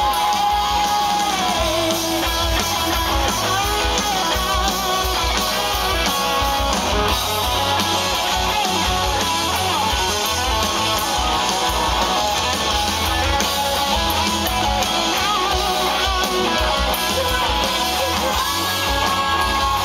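Live rock band playing loud electric guitars over drums.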